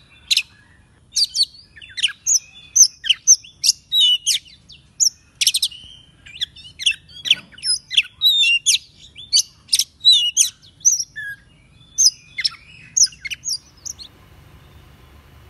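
Oriental magpie-robin singing a loud, fast, varied song of whistles and sharp chirps, stopping shortly before the end.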